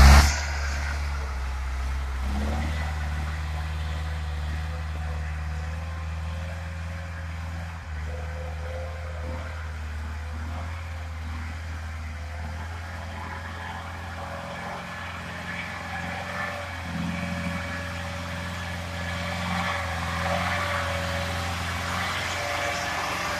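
Robur four-wheel-drive truck's engine running steadily as the truck drives slowly through mud.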